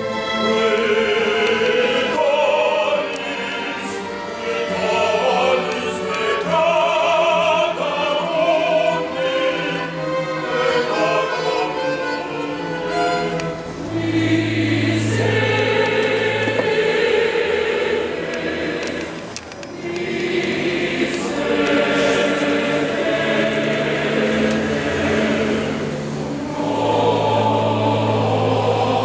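Mixed choir singing with orchestral accompaniment, in long phrases with brief pauses about halfway and two-thirds of the way through. A deep low note sounds under the voices after each of the first two pauses.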